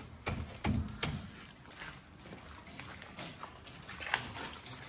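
Scattered light metal clicks and knocks, with rustling, from a socket wrench on a long extension as the brake caliper bolts are worked out; the sharpest knock comes about four seconds in.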